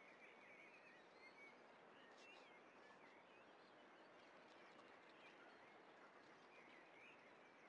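Faint outdoor ambience at near silence: a steady hiss with scattered short chirps of distant small birds.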